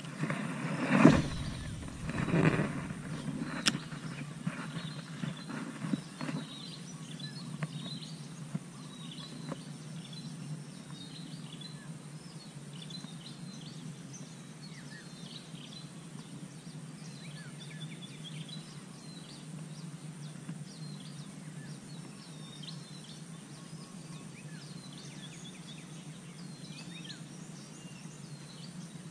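Small birds chirping in many short calls over a steady low rumble of outdoor ambience, with two louder noises about one and two and a half seconds in.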